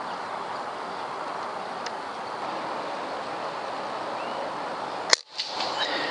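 A single shot from a PCP air rifle, one sharp crack about five seconds in, over a steady outdoor hiss.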